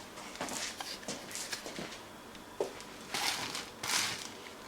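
Faint rustling and light clicks of a camera flash unit and its packaging being handled, with two louder swishes near the end.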